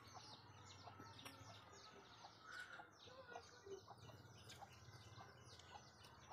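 Faint, continuous chirping of small birds: a steady stream of short, high, falling calls, several a second.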